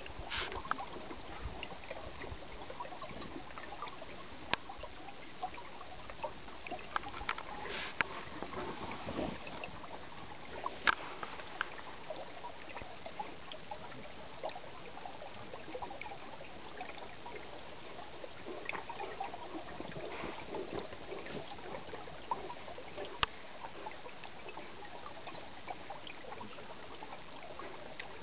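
Frozen river: water trickling and gurgling steadily, with scattered sharp clicks and cracks throughout.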